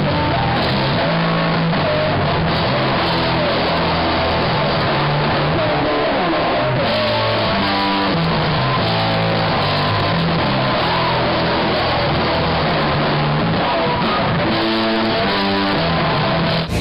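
Live rock band playing loud, with electric guitar over a moving bass line, recorded from the crowd with a thin, muffled top end.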